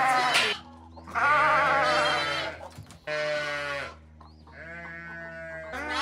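Young lamb bleating again and again: long, wavering calls with short breaks between them, one of them fainter.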